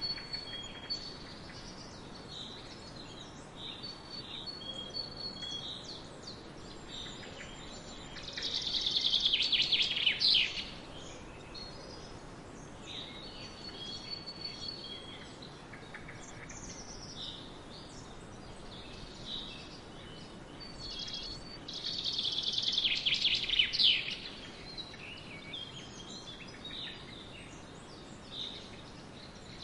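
Swallows twittering in many short chirps over a faint steady hiss of wind. Twice, crickets chirr in a louder dense burst lasting two or three seconds.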